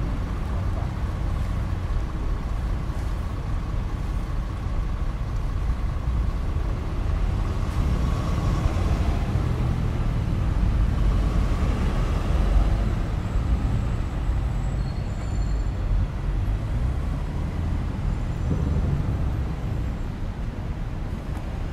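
City road traffic running steadily: a continuous low rumble of engines and tyres from cars, buses and trucks. It swells louder about ten seconds in as vehicles pass close, then eases back.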